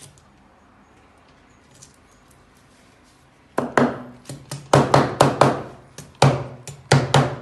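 Claw hammer tapping small 6 mm wall plugs into drilled holes through a mounting plate: a quick run of about a dozen sharp knocks, three or four a second, starting about halfway in.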